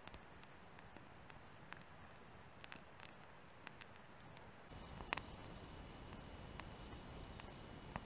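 Campfire of burning wood crackling faintly, with sparse, irregular snaps and pops, the sharpest just after the midpoint.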